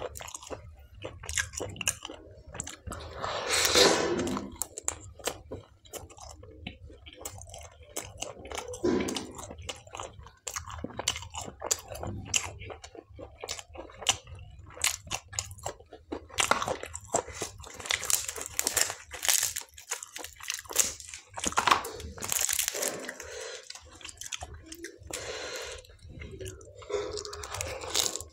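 Close-miked eating: a person chewing and biting into food, with a steady run of small clicking chews and several louder crunching bites. The food is palak paneer with butter tandoori naan and salad.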